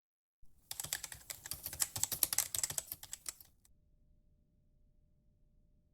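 Rapid clicking of keys typed on a keyboard for about three seconds, then stopping.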